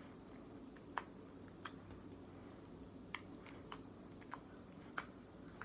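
Fingers pressing and poking glittery, sequin-filled slime, giving small sharp clicks and pops at irregular intervals, the loudest about a second in.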